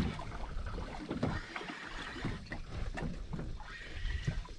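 Wind buffeting the microphone over water lapping against the hull of a small fishing boat at sea, with a few faint clicks.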